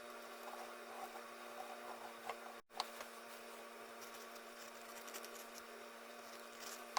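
Quiet room tone with a steady faint hum, broken by a few faint small clicks; the sound cuts out completely for an instant about two and a half seconds in.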